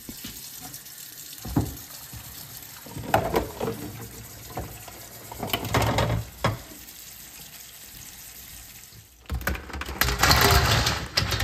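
Hot water pouring from a steel pot of hard-boiled eggs into a colander in a kitchen sink, with a few knocks of the pot. About nine seconds in, a louder clattering rush as the drained eggs are tipped from the colander into a steel bowl of ice.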